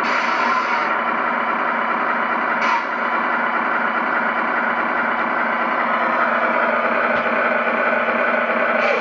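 An engine running steadily, with short bursts of hiss at the start, about three seconds in, and at the end.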